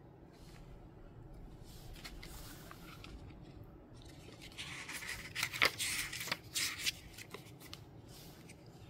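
Paper and plastic notebook refills being handled over an open leather notebook cover: faint rustling, then a louder stretch of crinkly rustling with a few sharp clicks about halfway through, settling again near the end.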